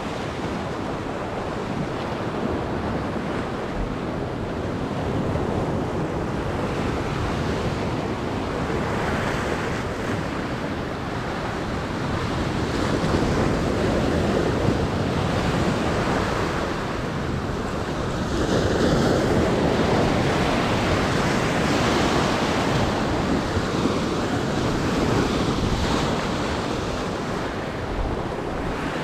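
Sea waves breaking and washing over rocks on a rocky shore in heavy surf, with wind on the microphone. The surf swells louder in slow surges, most strongly around the middle and about two-thirds of the way through.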